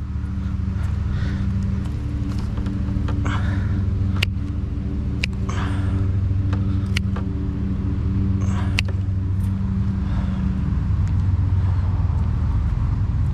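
A vehicle engine idling steadily throughout, with a few sharp knocks and clicks about four, five, seven and nine seconds in as scrap is picked through.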